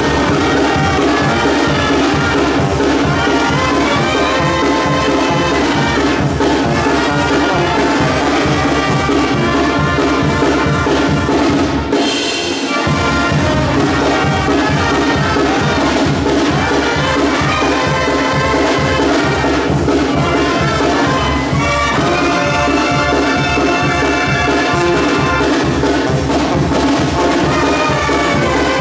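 Mexican brass band playing: trumpets carrying the melody over a sousaphone bass line, with snare drum and cymbal keeping a steady beat. The sound thins briefly about twelve seconds in, then the band carries on.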